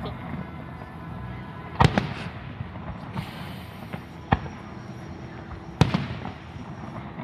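Fireworks display: aerial shells bursting with three sharp bangs about two, four and six seconds in, over a continuous low background noise.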